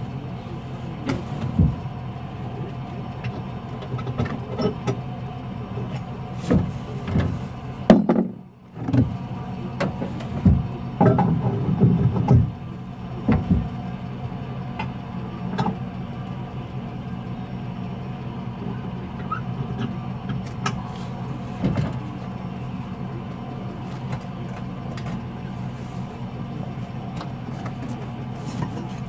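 Pickup truck idling with a steady low hum while gear is handled in the truck bed: scattered knocks and thumps, the loudest about eight seconds in and a cluster a few seconds later.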